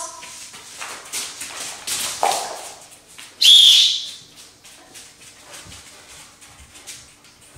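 A dog-training whistle blown once, a single steady high-pitched blast of just under a second, about three and a half seconds in. It is the recall cue that sends the Belgian Malinois to its 'between my legs' position.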